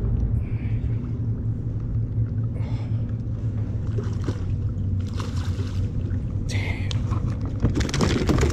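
Water lapping and splashing against a kayak hull in short bursts, over a steady low rumble.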